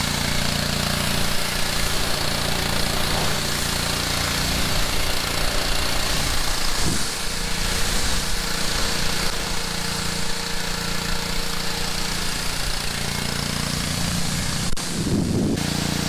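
Gas-engine pressure washer running steadily, its water jet hissing against a car's body panels. Near the end there is a click and the spray stops for about half a second, the engine note wavering, then both carry on.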